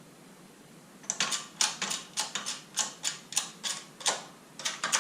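Hammer tapping on metal, driving a bearing race into the suspension linkage: a run of sharp taps, about three a second, starting about a second in.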